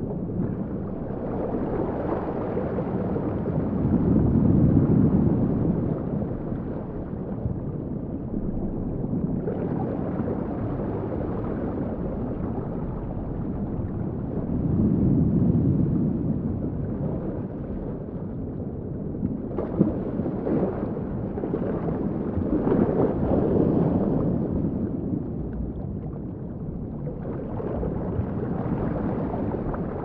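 Recreated underwater sea ambience: a muffled, low rumble of moving water that swells and fades about every ten seconds. A few sharp clicks or pops come about twenty seconds in.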